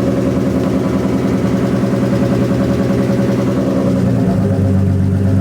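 Nissan RB25DET turbocharged straight-six idling with no exhaust fitted, just after its first start. About four seconds in the idle settles to a lower, steadier note as the engine warms up.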